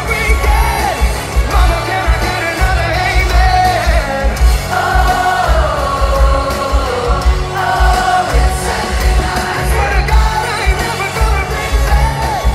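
Live pop-rock band performance: a male lead singer sings a melody over electric guitar and a steady, pulsing drum and bass beat.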